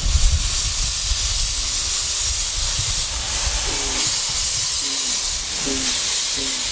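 Narrow-gauge steam locomotive moving off slowly with steam blowing from its open cylinder drain cocks: a loud, steady hiss over a low rumble. Short repeated low notes come in about halfway through.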